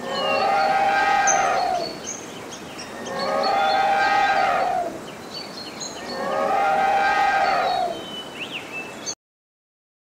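An elephant trumpeting: three long calls, each lasting about two seconds, with about a second between them.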